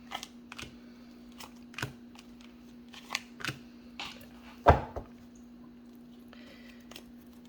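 Tarot cards being handled on a table: a series of short, sharp clicks and taps, with one louder thump a little past halfway, over a steady low hum.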